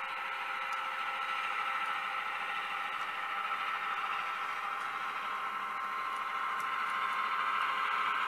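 HO scale model train running slowly on the layout track: a steady whirring hum from the locomotive and rolling stock, growing a little louder near the end.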